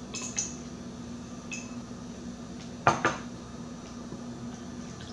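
A spoon clinks lightly against a tall drinking glass, then the glass is set down on a glass tabletop with two sharp knocks in quick succession, about three seconds in.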